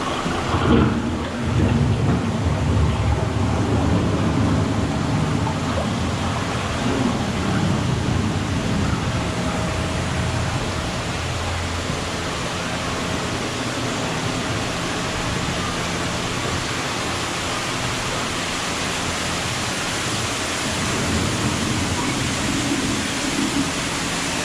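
Simulated thunderstorm effects: low rumbles of thunder in the first few seconds over a steady hiss of rain.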